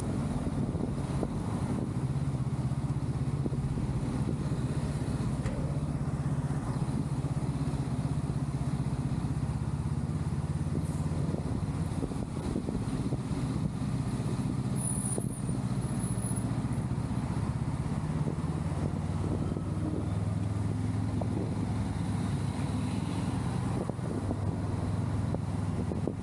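Honda Rebel 500's parallel-twin engine running at low, fairly steady revs while the motorcycle moves slowly through traffic, its pitch shifting slightly up and down with the throttle.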